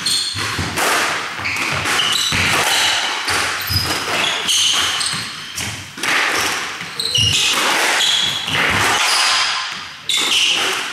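Squash rally: the ball smacking off rackets and the court walls every second or so, with sports shoes squeaking sharply on the wooden floor between shots.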